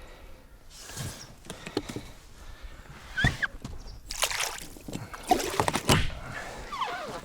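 Irregular water sloshing and splashing with clicks and knocks, as of a small boat being handled or moved on the water, growing busier about halfway through, with a few brief squeaks.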